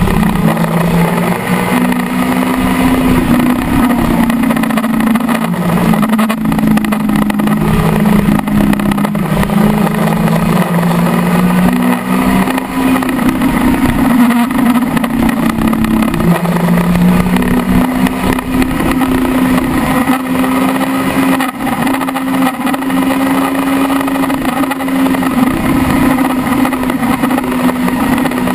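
Kawasaki ZX-10R's inline-four engine running at high revs at highway speed, its note holding steady and stepping up and down in pitch a few times, over steady wind rush.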